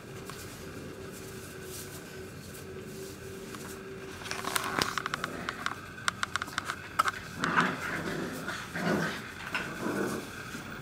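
Olde English Bulldogge puppies play-fighting: from about four seconds in, a run of quick clicks and scuffles, then puppy growls and yelps for the next few seconds.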